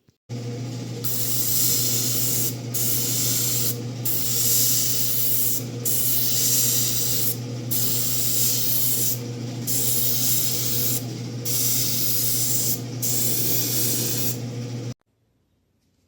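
Electric paint spray gun spraying, a loud hiss over the steady hum of its motor, the hiss breaking off briefly every second or two. The motor starts abruptly and stops about a second before the end.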